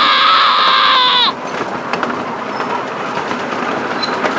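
A child's loud, high-pitched shriek of excitement, held for about a second before it cuts off. It is followed by the steady rattle and clatter of a miniature ride-on train's cars rolling along the track.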